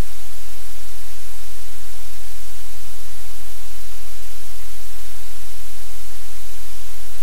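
Loud, steady hiss of static-like noise with no pitch and no breaks.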